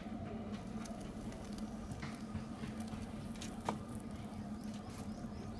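Potter's wheel spinning with a steady low hum, while wet hands and a wet cloth rub against a turning clay pot, giving faint wet pattering and scuffing; one sharper click about three and a half seconds in.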